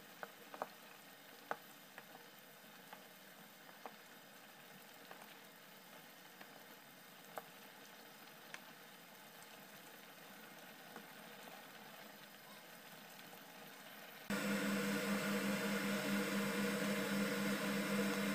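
Curry sauce simmering in a frying pan as it is stirred with a wooden spatula: a faint bubbling hiss with scattered light clicks and pops. About 14 seconds in, a steady electrical hum with a low tone starts suddenly.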